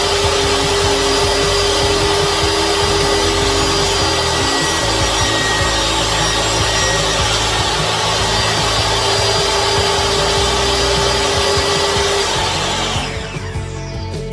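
DeWalt DWE7492 table saw running and cutting wood, a steady motor whine over dense blade noise. It stops about 13 seconds in, and music follows near the end.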